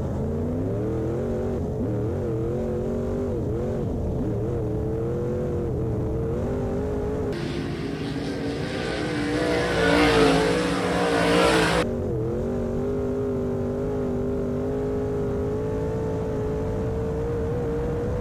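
In-car sound of a dirt-track modified race car's engine running on track, its pitch rising and falling. About seven seconds in, the sound switches for about four seconds to a trackside recording of a modified race car passing, louder and hissier. Then the in-car engine sound returns at a fairly steady pitch.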